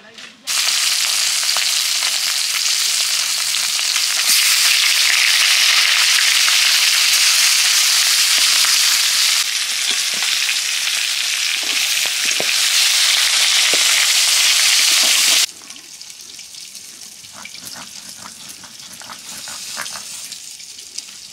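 Pieces of rupchand (pomfret) fish coated in salt, turmeric and chilli frying in hot oil, a loud steady sizzle that cuts off suddenly about 15 seconds in. After it, spices are ground by hand with a stone on a flat grinding slab: quieter scraping and knocking.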